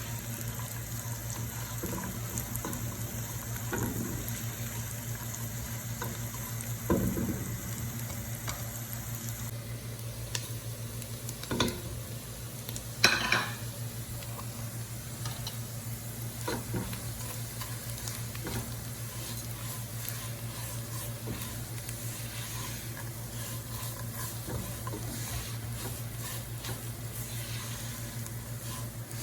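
A spoon stirring and scraping in a pot of sheer khorma cooking on the stove, over a steady low hum. A few louder knocks of utensil on pot come through, the loudest about 13 seconds in.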